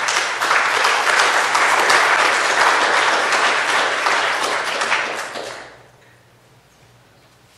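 Audience applauding, a dense spell of clapping that dies away about six seconds in.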